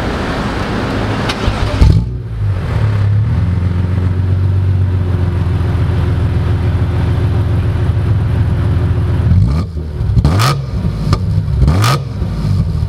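1998 BMW M Roadster's straight-six engine, heard at its quad tailpipes through an aftermarket cat-back exhaust, starting up. It catches about two seconds in and settles into a steady idle. Near the end it is blipped with a few quick revs.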